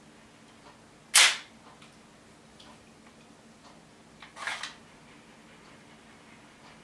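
3D-printed model of a Hino-Komuro pistol working its spring-driven action: one sharp snap about a second in, then a quick run of three or four quieter clicks around four and a half seconds in.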